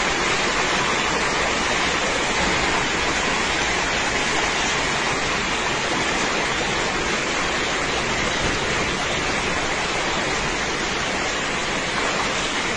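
Steady noise of a torrential, wind-driven downpour in a severe storm, even throughout with no separate impacts standing out.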